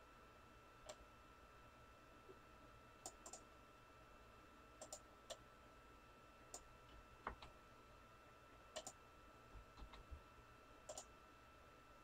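Faint computer mouse clicks, scattered and irregular, several coming as quick double clicks, while text on screen is selected. A faint steady high-pitched electrical whine runs underneath.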